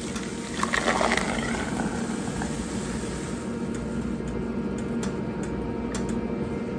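Thick, frothy eggnog base of egg yolks tempered with hot milk and cream being poured from a glass bowl into a stainless steel saucepan, a steady splashing pour that is loudest in the first second or two.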